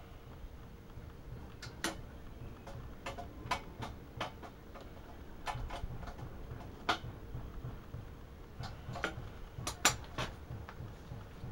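Scattered sharp metal clicks and clinks at irregular intervals as a wrench works the fittings on an air compressor's pressure regulator to unscrew it, over a low background rumble. The loudest click comes a little before the end.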